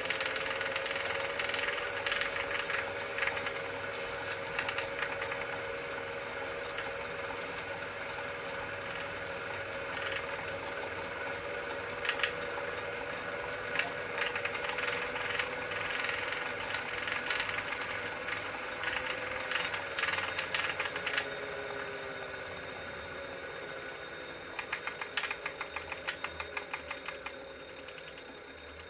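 Wahoo Kickr Core smart trainer running with a steady whine and irregular sharp clicks over it: the clicking noise that is its fault. About two-thirds of the way in the whine starts falling in pitch as the flywheel spins down, and near the end a quick run of ratchet-like ticking comes through.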